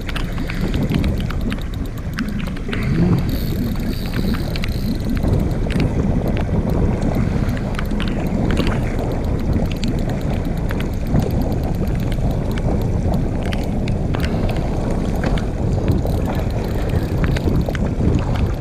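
Wind buffeting the microphone and water sounds, a steady low rumble with scattered small clicks, while a hooked carp is being played.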